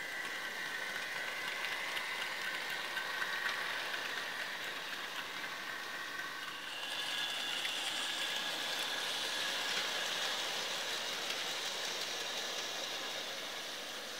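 Bachmann OO gauge Iron Arry and Iron Bert model diesel locomotives running along model railway track, a steady electric motor whine with wheels rolling on the rails. The whine jumps to a higher pitch about seven seconds in.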